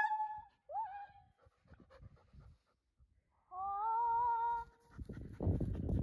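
A dog panting and sniffing close to the microphone during the last second or so, after a brief call just under a second in and a steady, held whine-like tone lasting about a second.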